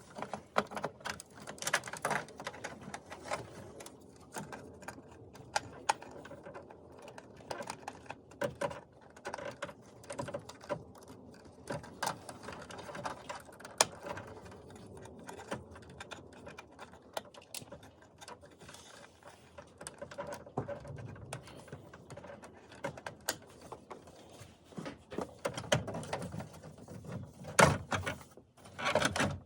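Irregular small clicks, taps and knocks of hand tools and plastic dashboard parts being handled while an instrument cluster is fitted into the dash.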